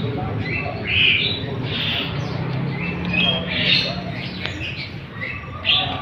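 Many caged songbirds chirping at once, short high calls overlapping one another throughout.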